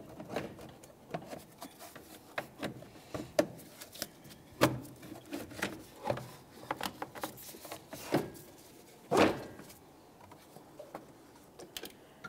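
Volkswagen Jetta's plastic dual cooling-fan shroud being wiggled free and lifted out of the engine bay: irregular plastic knocks, clicks and scraping as it rubs past the radiator and hoses. The loudest knock comes about nine seconds in, and it is quieter over the last couple of seconds.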